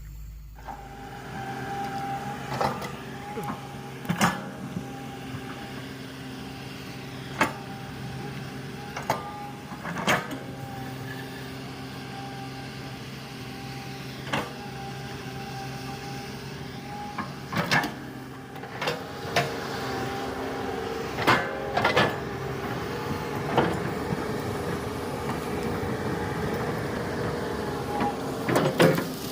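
Komatsu hydraulic excavator's diesel engine running steadily under working load, with a dozen or so sharp knocks and cracks at irregular intervals as it works.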